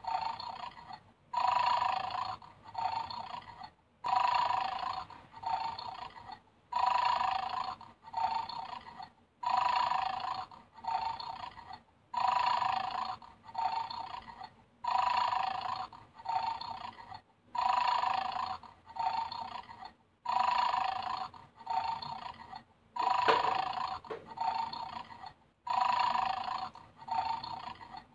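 Recorded snoring played through the small speaker of a battery-powered bulldog toy game. The loop repeats about every three seconds, each cycle a longer in-breath followed by a shorter out-breath.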